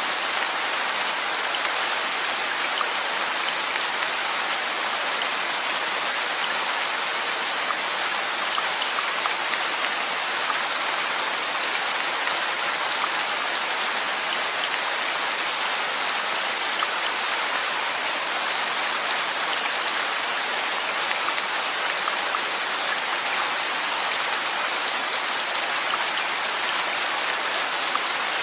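Steady rainfall, an even hiss of drops with faint scattered patter and no thunder.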